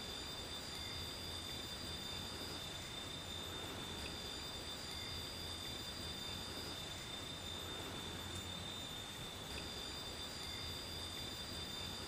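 Forest ambience of insects singing in thin steady high tones, one continuous and a higher one that stops and starts every few seconds, over a steady hiss and a low hum.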